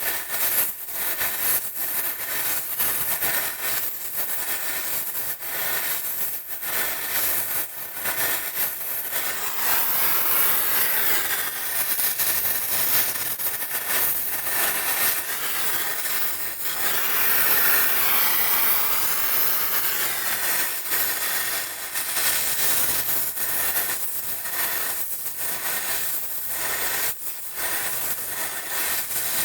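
Gas brazing torch flame hissing steadily while heating a pipe joint, the rushing noise briefly dipping now and then and growing louder in the middle.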